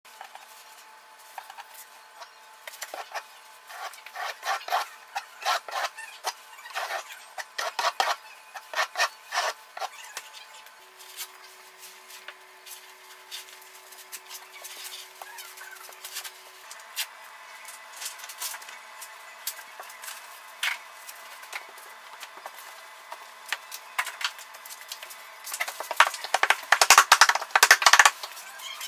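Hexagon mosaic tile being pressed and rubbed onto the backsplash wall by hand: a series of short scraping strokes, then a denser run of scraping near the end.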